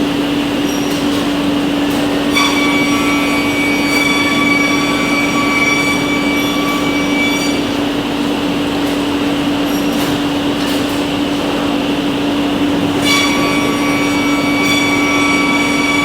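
Four-head CNC machine running with a steady hum and a noisy hiss. A high whine from the spindles comes in about two and a half seconds in, drops out near eight seconds, and returns around thirteen seconds.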